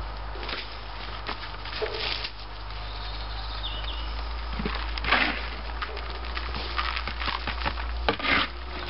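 Hand repotting: coarse bark potting compost scraped, scooped and dropped into black plastic pots, with light knocks of the plastic pots. The louder scrapes come about five seconds in and near the end, and a steady low hum runs underneath.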